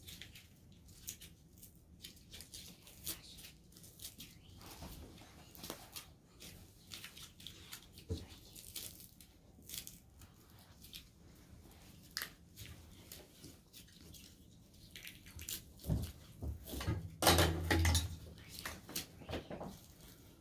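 Handling noises while assembling a metal adjustable bed base: scattered clicks and rustles of cables being plugged in and plastic wrap being moved, then a cluster of louder knocks and a low rumble about sixteen to eighteen seconds in as the base is handled.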